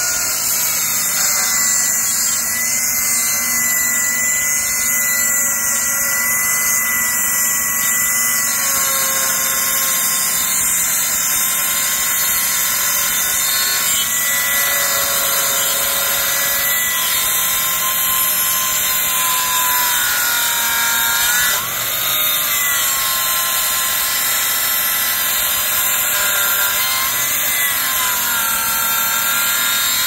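Circular saw on its stock blade, cutting slowly through a hard, dry hardwood board. It runs steadily under load with a wavering whine, and the pitch sags and recovers once about two-thirds of the way in.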